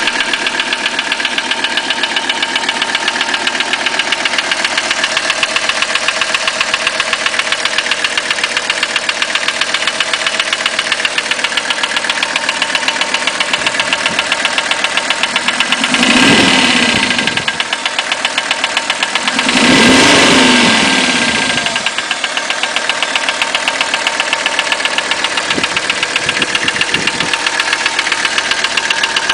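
1985 Mercedes-Benz 300TD five-cylinder diesel engine idling with a rapid, steady knock. It is revved briefly twice around the middle, then settles back to idle. The owner says the knock sounds like piston slap but doubts that piston slap is the cause.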